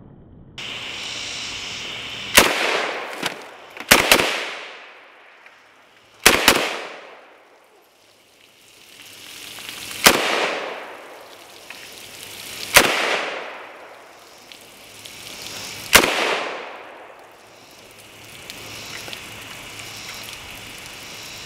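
AK-47 rifle fired semi-automatically: about eight shots over some fifteen seconds, a few in quick pairs, then single shots spaced a few seconds apart. Each shot is followed by a long echo that fades away. A steady high hiss runs underneath.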